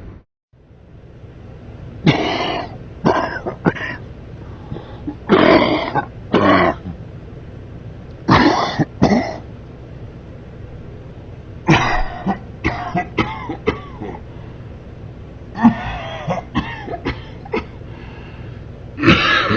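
A man coughing and clearing his throat in about five separate fits, each a few quick coughs in a row, over a steady low hum.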